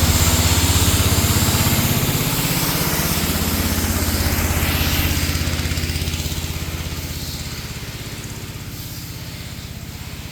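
Pressure washer's small engine running steadily, with a high hiss of spray over it; the hiss and overall level fall off over the second half while the engine runs on.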